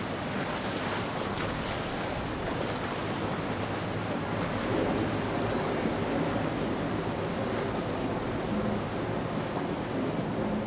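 Steady rush of wind and water on a boat under way, with wind buffeting the microphone.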